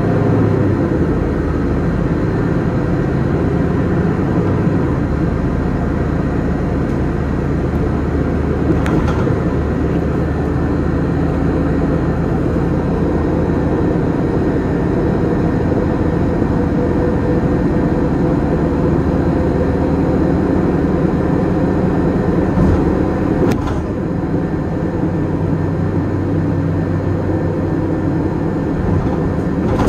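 Engine of a municipal city bus running steadily with road and tyre noise, heard from inside the moving bus, with a couple of faint clicks or rattles.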